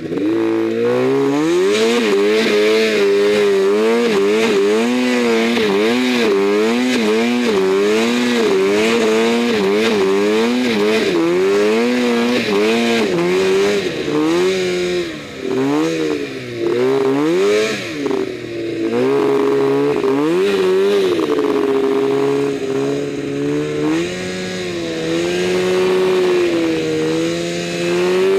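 Arctic Cat M1000 snowmobile's 1000cc two-stroke twin engine under throttle in deep powder, its revs swinging up and down continuously. The revs dip briefly a few times about halfway through, then climb and hold steadier toward the end.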